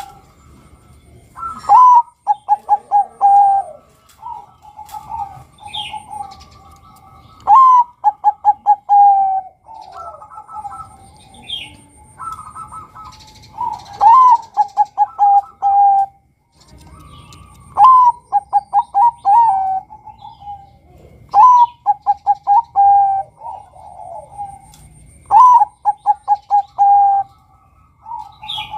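Zebra dove (Bangkok-type perkutut) cooing: six phrases a few seconds apart, each a rising opening note followed by a quick run of about eight short coos. Fainter high chirps come between the phrases.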